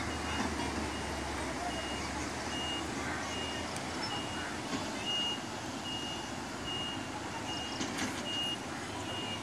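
A vehicle's reversing alarm: short, high electronic beeps at one steady pitch, about three every two seconds, over steady outdoor background noise.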